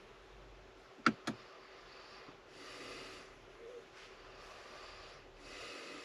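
Two sharp clicks in quick succession about a second in, then soft breathing twice in a quiet car cabin.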